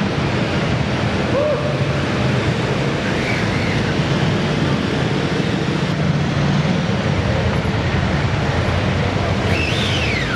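Steady, even din of a busy indoor exhibition hall, with motorcycle engines running at low speed under it.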